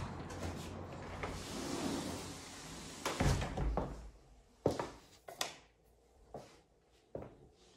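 Steady hiss of street noise that falls away as a door is pulled shut with a low thud, followed by four separate sharp knocks and clicks.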